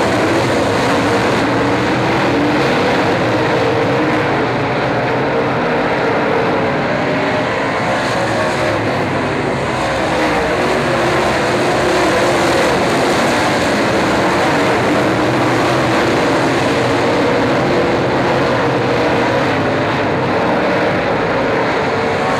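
A field of dirt late model race cars running at racing speed, their V8 engines blending into one continuous loud drone, with engine pitches rising and falling as the cars go past.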